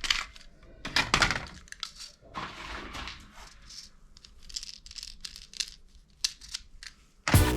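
Objects being handled at close range: a string of irregular clicks and crinkling, rustling noises. Music comes back in just before the end.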